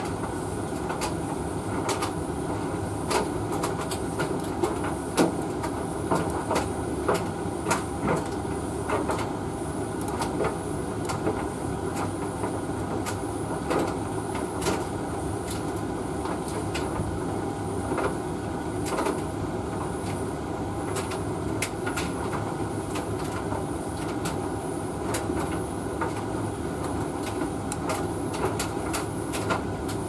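Hoover VTV581NC vented tumble dryer running: a steady drone of the motor and drum, with irregular light clicks and knocks as the clothes tumble inside.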